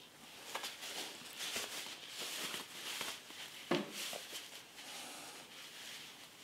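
Heat-resistant fabric grill gloves rustling and rubbing as a hand works into one and moves about, with a few soft knocks, the sharpest about three and a half seconds in.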